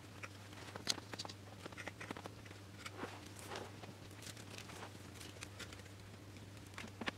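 Faint crinkling of plastic covering film and scattered small clicks and taps as a balsa model tailplane, film strips and small plastic clamps are handled, with a few sharper clicks about a second in, around three seconds and near the end.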